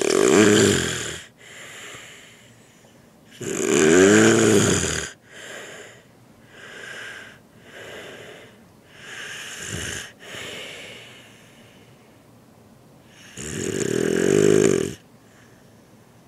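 Snoring: three loud snores, each lasting a second or so, at the start, around four seconds in and near the end, with softer breaths in between.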